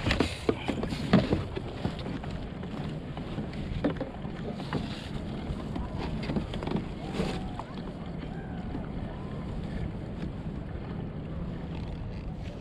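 Wind buffeting the microphone over water moving around a kayak, with a few sharp knocks in the first second or so.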